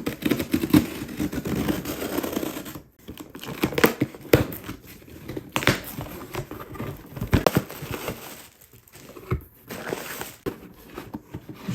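Packaging being opened by hand: irregular crinkling, rustling and tearing with scattered sharp clicks and crackles.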